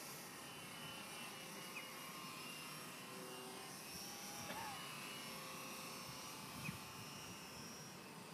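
Brushed electric motor and propeller of a small radio-controlled Super Cub biplane flying at a distance: a faint, steady whine that drifts slightly in pitch.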